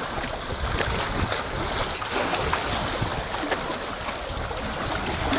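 Wind buffeting the microphone over lake waves washing against breakwater rocks: a steady rushing noise with an uneven low rumble.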